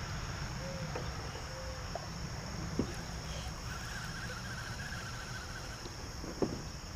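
Steady high drone of an insect chorus, with a low rumble beneath it and two faint knocks, about three seconds in and near the end.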